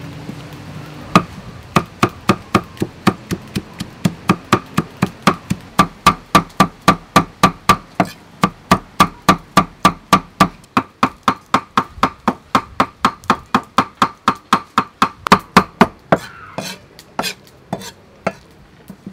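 Cleaver chopping red chillies on a thick round chopping block: a steady run of sharp knocks, about four a second. Near the end it gives way to a few scattered, lighter knocks and scraping as the chopped chilli is gathered.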